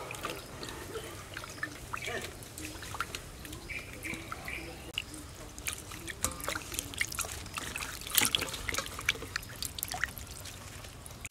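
Hands swishing lemongrass, a root and leaves in a stainless-steel bowl of water: splashing, trickling and dripping, with water running back into the bowl as the bunch is lifted out. The splashes grow busier in the second half.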